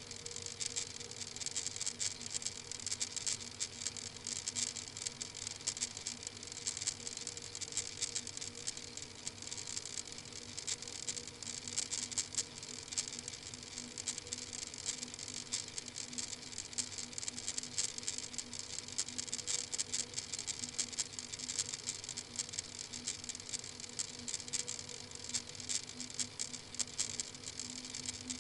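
Steady hiss with dense, fine crackling and a faint steady hum: the background noise of a webcam microphone beside a bird sitting still. No calls stand out.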